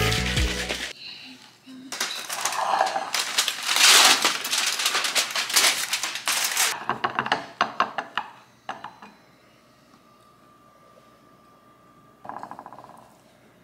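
Clattering and clinking of small hard objects over a noisy rush, dying away after several seconds, then a brief buzz near the end.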